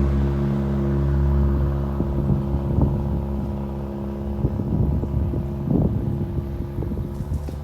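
A road vehicle's engine, having just sped up, runs at a steady pitch and slowly fades as it moves away. Scattered small knocks and rustles sound close by.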